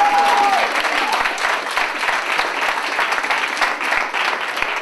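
Applause: many hands clapping in a dense, steady patter, easing slightly toward the end.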